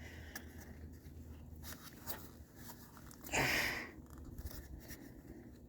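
Faint clicks and rubbing as a hand works at the plastic wiring-harness connector on a pickup's neutral safety switch, trying to unplug it, with a brief louder rustle a little past three seconds in.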